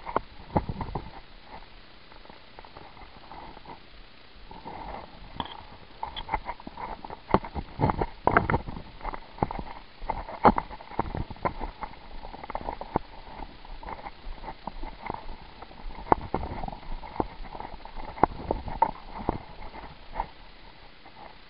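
Footsteps crunching on dry dirt and straw, an irregular run of sharp steps and knocks that comes thicker in two stretches.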